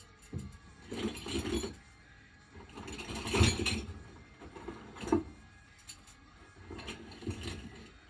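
Small metal hardware being handled on a workbench: irregular clinks, rattles and rustles, loudest about halfway through.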